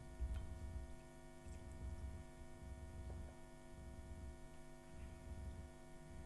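Faint steady electrical mains hum in the recording, with a low rumble underneath that swells and fades every second or so.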